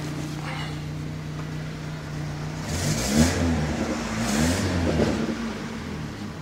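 Daewoo Lanos's 1.4 L GM Family 1 four-cylinder engine idling, then revved twice, its pitch rising and falling each time, about three and four and a half seconds in. Two broken studs remain unfixed, which the owner says make it sound like a tractor.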